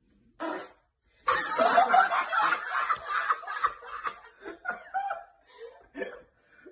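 Laughter: a long fit that starts about a second in, then breaks into shorter chuckles that thin out toward the end.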